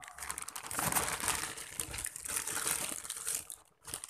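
Plastic courier mailer crinkling and rustling as it is handled and squeezed, a dense run of crackles that drops off briefly near the end.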